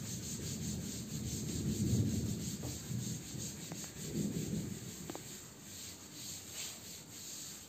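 A blackboard being wiped clean of chalk with a cloth: a run of rubbing strokes, loudest about two seconds in and fading toward the end.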